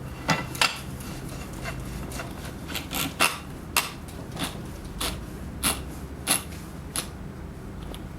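Sharp metallic clicks, about one every half second, as a heavy machine gun's barrel is screwed into the receiver and the barrel locking spring clicks over each notch.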